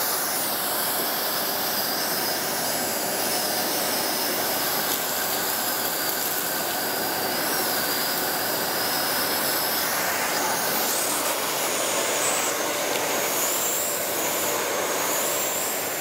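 Parkside Performance PPWD 30 A1 wet-and-dry workshop vacuum running steadily, sucking up sawdust through its metal wand, with a high whine over the rush of air.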